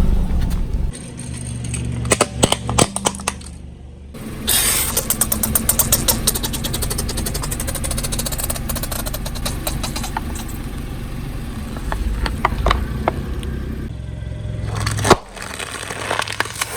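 A car tyre rolling over and crushing objects, with the car's engine running low underneath: scattered snaps, then a long stretch of dense crackling and crunching, and one sharp crack about fifteen seconds in.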